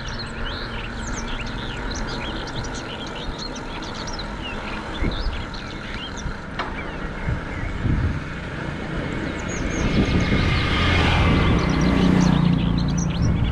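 Birds chirping over a low road rumble, then a motor vehicle passes, swelling up from about ten seconds in and easing off near the end.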